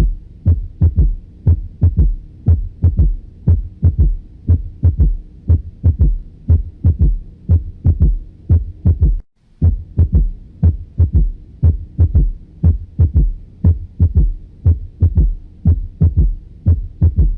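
Recorded heartbeat with a third heart sound (S3), a low-pitched extra sound coming just after the second heart sound, heard through the stethoscope bell at the mitral area. The beats repeat steadily and break off briefly about nine seconds in.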